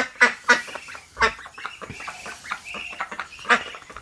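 Ducks quacking: a run of short, harsh quacks, three in quick succession at first, then a few more spaced out.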